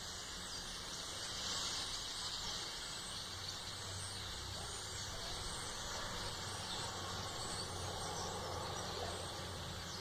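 A large flock of birds hidden in the trees calling all at once: a dense, steady, high-pitched chatter with no single voice standing out.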